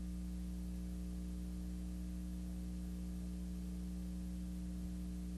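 Steady electrical mains hum with a stack of even overtones and faint hiss, with nothing else sounding: the bare hum of the recording chain while no programme sound plays.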